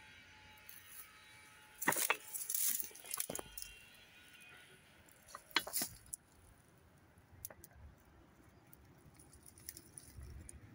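Footsteps crunching through dry grass and fallen leaves: two short spells of crackling, about two seconds in and again past the middle, with only faint scattered ticks in between.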